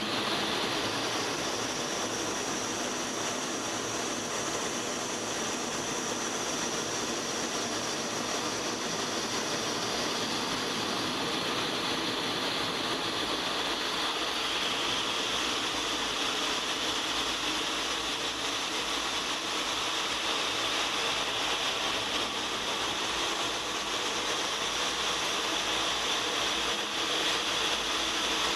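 Steady rush of engine and airflow noise inside the cockpit of an A-10 Thunderbolt II in flight, from its twin General Electric TF34 turbofans, with a high whine over it.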